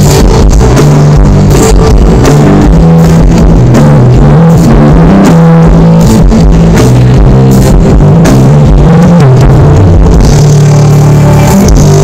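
A live band playing on stage during a soundcheck: drum kit beat with guitars and a steady bass line, loud and held near full level.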